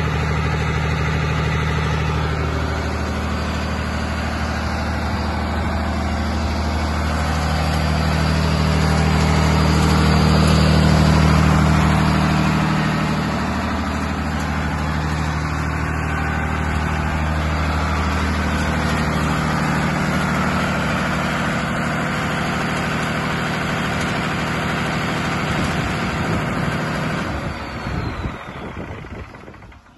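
Iveco 8061 six-cylinder diesel engine driving a fire pump runs steadily under load, its pitch shifting a little about halfway through. Near the end the engine is shut down and winds to a stop.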